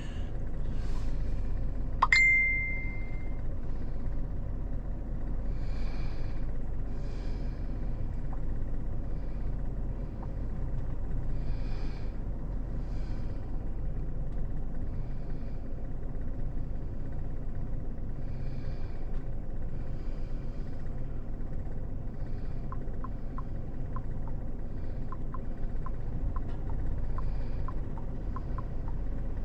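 Steady low wind rumble from the early hurricane wind. About two seconds in a single bright ding rings out, and faint, fairly even ticks come in over the last several seconds.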